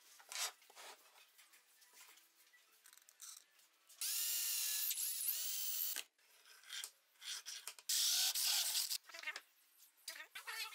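Cordless drill/driver running in two short bursts, driving into an aluminium rail on a wooden upright; in the first, longer burst the motor's pitch dips and recovers as it bites. A few light knocks of handling are heard between the bursts.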